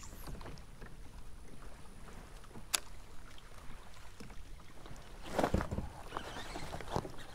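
Water lapping against a plastic fishing kayak's hull, with a low wind rumble. There is a sharp click a little under three seconds in, a brief louder thump and rustle about five and a half seconds in, and another click near the end.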